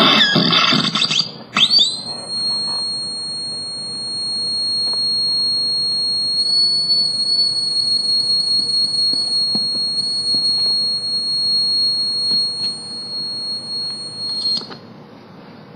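Circuit-bent toy electronic drum pad: a short burst of glitchy, warbling electronic noise, then a single steady high-pitched electronic whistle held for about thirteen seconds, cutting off suddenly near the end.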